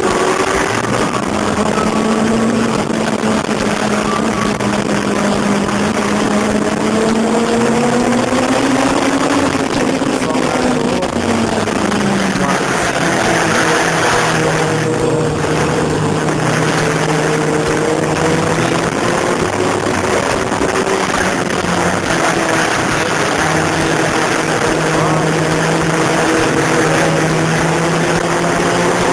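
Sport motorcycle engine running at high revs, heard from the bike itself under a heavy rush of wind. The engine note climbs steadily for about ten seconds, drops around eleven seconds in, holds steady for a long stretch, then starts climbing again near the end.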